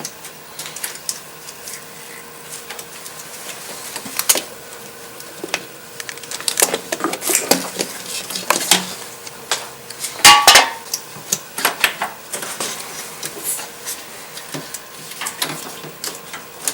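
Irregular clicks and clatters of metal and hard plastic, with the loudest cluster about ten seconds in, from hand work on the coolant reservoir's hose and spring clamp as the new tank is fitted.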